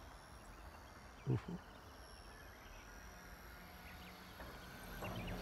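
Faint, steady high-pitched whine of a distant K110 micro RC helicopter's motor and rotors in flight. A brief low thump about a second in.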